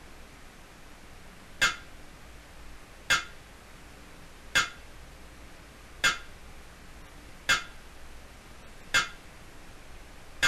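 Hammer striking metal: a sharp, ringing clink repeated evenly about every second and a half.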